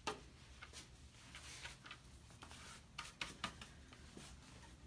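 Faint scattered clicks and light rustles of handling, about a dozen small taps, over a low steady hum.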